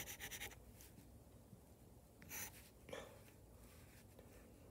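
Pencil scratching on paper in short strokes as lines are sketched: a quick run of strokes at the start, then a couple of single strokes past the middle. Faint overall.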